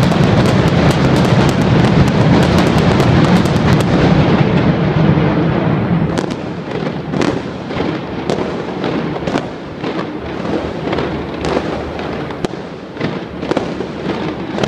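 Loud fireworks going off from a building's roof. A dense, rapid crackle fills the first few seconds, then it thins to separate sharp bangs, about two a second.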